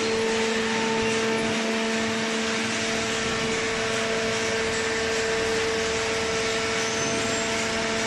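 Hydraulic waste-paper baler running: a steady hum with a strong pitched drone and its octave over a constant whir, the even sound of the baler's hydraulic pump motor.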